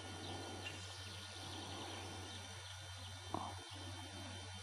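Faint outdoor background with a steady low hum and a few faint bird chirps, and one short, slightly louder sound a little over three seconds in.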